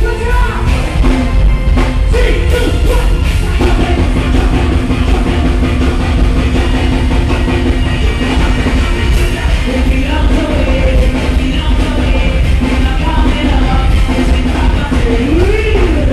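Live soca band music at full volume, with a heavy, steady bass and a woman singing lead over it.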